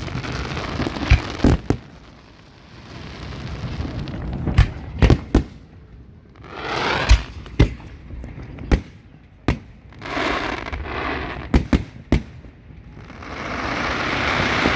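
Fireworks display: about a dozen sharp bangs at uneven intervals, with two spells of crackling between them. A steady hiss builds near the end.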